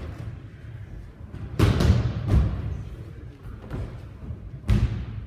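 Bodies thudding onto padded training mats as aikido students take breakfalls from throws: a cluster of about three heavy thumps a second and a half in, and one more near the end.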